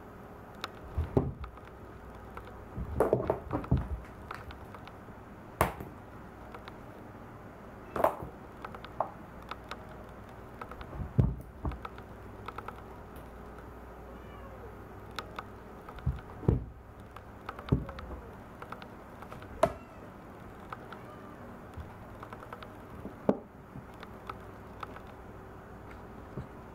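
Cat shifting and rolling inside a clear plastic storage box: scattered knocks and scrapes of its paws and body against the plastic walls.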